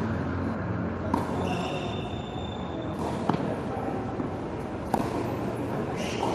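Tennis ball being struck by rackets and bouncing on a hard court during a rally: a handful of sharp pops one to two seconds apart, the sharpest about five seconds in, over a steady low rumble.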